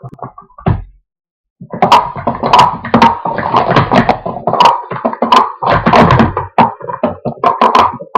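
Speed Stacks plastic sport-stacking cups clattering as they are stacked up and down at speed by two players working together. After a few clicks and a short pause about a second in, there is a dense, fast run of clacks that continues to the end.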